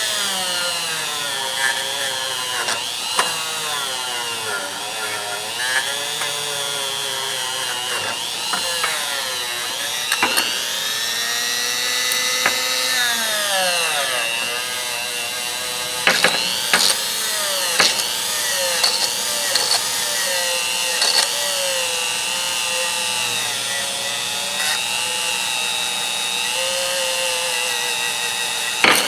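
Small handheld power tool's motor running without a break, its whine sliding down and back up as its speed changes, with a few sharp clicks around the middle.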